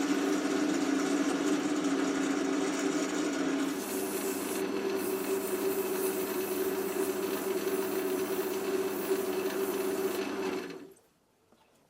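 A power tool motor running steadily, with the rubbing and scraping of abrasive or cutting work on the piece; its pitch steps up slightly about four seconds in, and it stops abruptly near the end.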